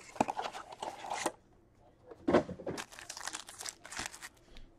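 Plastic wrapping on a hockey card blaster box and its packs being torn open and crinkled by hand. There are two spells of tearing and crinkling with a short pause of about a second between them.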